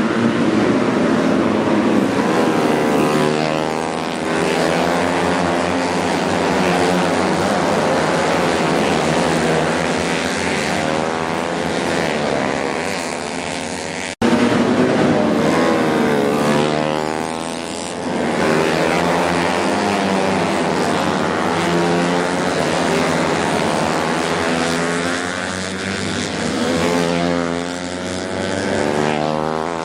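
A pack of 125cc four-stroke underbone racing motorcycles running hard together, many engine notes overlapping and rising and falling as the bikes accelerate and shift. The sound cuts out for an instant about halfway.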